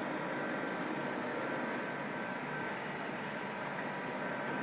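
Steady, unbroken mechanical drone with a faint high whine running through it.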